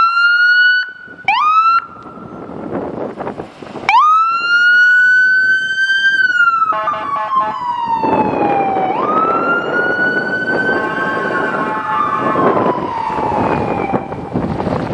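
Fire apparatus siren: a few short rising yelps, then a wail that winds up, holds, falls slowly, winds up again and falls once more. A second, steady several-toned sound and the running of the passing rescue truck join under it from about the middle.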